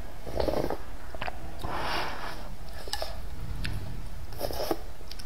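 Eating sounds from a person sipping broth from a bowl and slurping up rice noodles, with chewing and small mouth clicks between the slurps.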